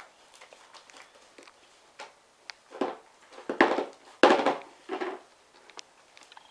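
Fluffy slime being mixed to work in green colouring: faint small clicks and crackles, then four loud squishing swells in quick succession about halfway through.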